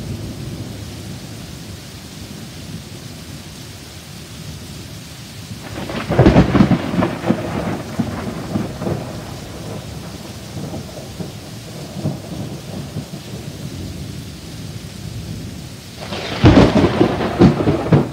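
Steady heavy rain with two loud, crackling thunderclaps, one about six seconds in and one near the end, each lasting a second or two.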